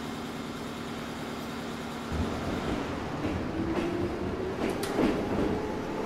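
A train pulling away from a station: a steady standing hum, then about two seconds in it starts moving, with a rising whine and wheels clacking over the rail joints, the clacks coming more often toward the end.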